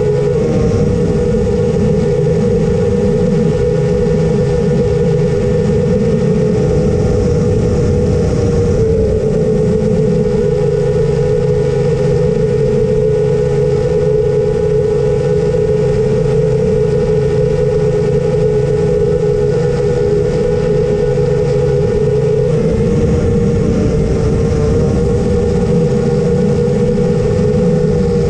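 Steady, loud drone of an engine and propeller in flight, holding an even pitch with a low rumble beneath it.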